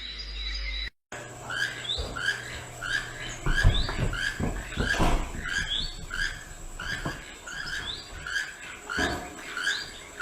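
A bird calling over and over in short chirps, about two a second, starting after a brief cut about a second in. A few low thumps sound under the chirps.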